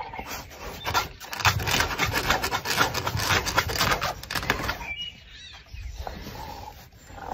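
A dog's claws scratching and scrabbling at the fabric of a raised cot bed, a quick run of scratches that stops about two-thirds of the way through, leaving it quieter.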